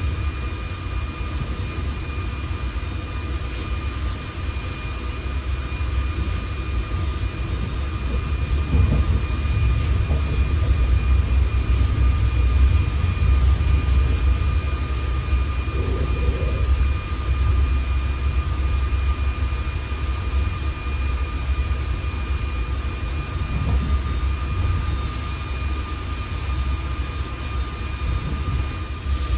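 Inside a passenger coach of a moving E464-hauled suburban train: a steady low rumble of the wheels running on the track, with a thin steady whine through it. The rumble grows louder for several seconds in the middle.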